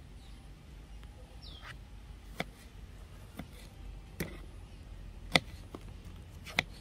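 Six sharp knocks at uneven spacing, roughly a second apart, the loudest a little past five seconds in, over low steady background noise.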